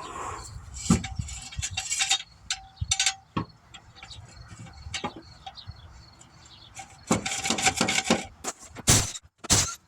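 Irregular clicks, clanks and knocks of tools and metal parts being handled while working on a car's wheel. Near the end comes a busier stretch of rattling and scraping, followed by several sharp bursts about half a second apart.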